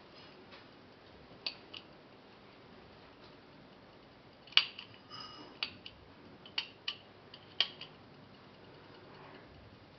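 The pushers and crown of a Slava mechanical split-seconds stopwatch clicking as they are pressed to start, split and reset the hands. There are about ten sharp clicks, several in quick pairs, and the loudest comes about halfway through.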